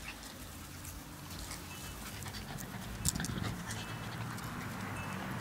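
A puppy panting softly close by, with a faint click about three seconds in.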